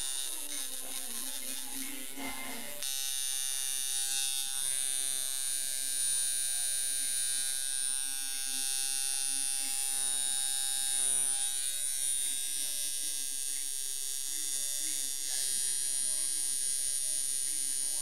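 Hand-made dual-coil tattoo liner machine running on about 5 volts, a continuous electric buzz. The buzz changes about three seconds in, then holds steady.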